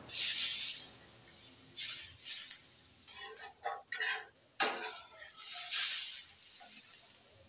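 A steel ladle stirring and scraping through a simmering curry in a steel kadhai, a run of short scraping strokes, with one sharp clink of the ladle against the pan about four and a half seconds in.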